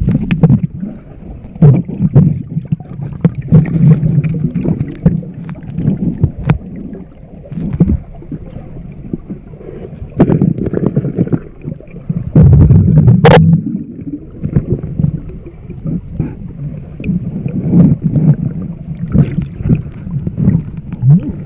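Muffled sloshing and gurgling of river water moving around a camera held underwater, with irregular bumps of handling and one sharp click a little past halfway.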